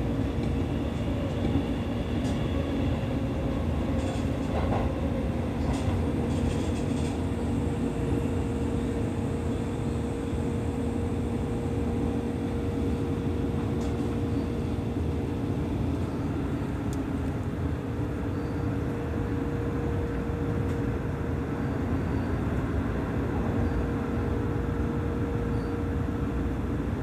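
Seibu 30000 series electric train running at steady speed, heard from the front of the train: the even rumble of wheels on rail with a steady hum.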